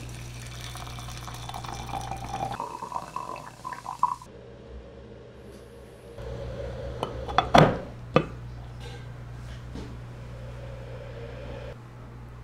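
Hot water poured from a glass pitcher into a glass teapot over oolong leaves, its pitch rising as the pot fills, stopping about four seconds in. Later come two sharp clinks close together.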